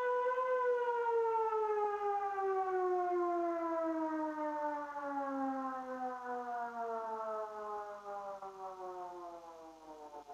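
Civil defence siren holding a steady wail with a slight waver, then winding down, its pitch falling smoothly and fading over about nine seconds. This is the 'Attention everyone!' warning signal, sounded during a technical test of the public warning system.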